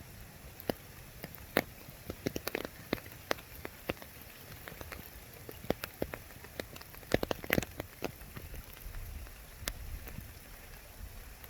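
Water drops falling in scattered, irregular drips and plinks, with small bunches of them about a quarter and two thirds of the way in, over a faint steady hiss.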